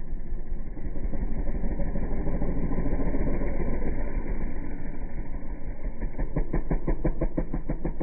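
An engine running steadily, with a rapid, even pulsing that becomes clear about six seconds in.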